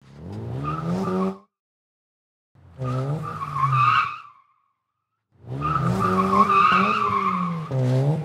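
Car engine revving with tyres squealing, in three separate bursts of one to three seconds each, cut off abruptly with silence between them.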